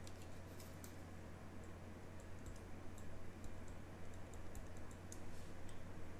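Faint, irregular clicks and taps of a pen stylus on a tablet as words are handwritten, over a steady low hum.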